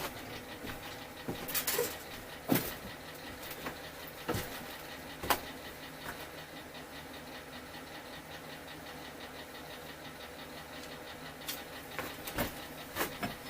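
Scattered clicks and knocks of metal parts and hand tools being handled during motorcycle assembly, a few in the first six seconds and a few more near the end, over a steady low hum.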